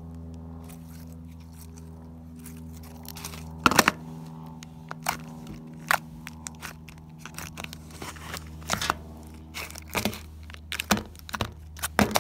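Hands stretching, squeezing and pressing a thick slime mixed with sequins, making sticky pops and crackles. These start about four seconds in and come more often near the end, over a steady low hum.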